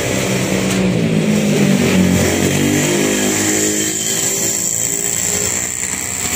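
A motor vehicle's engine running close by, its note rising and then falling over a few seconds.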